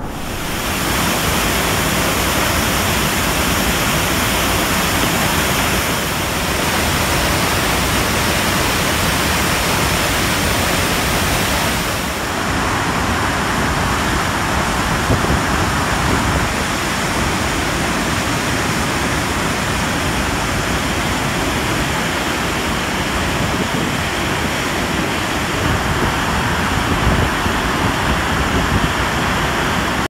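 Iguazu Falls: a loud, steady rush of water falling and crashing onto the rocks below, changing slightly in tone twice.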